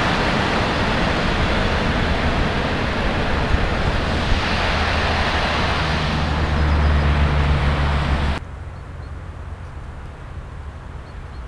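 A freight train rolling past, a loud steady rumble of wheels on rail with a low hum near the end. It cuts off abruptly about eight seconds in, leaving a much quieter steady hiss.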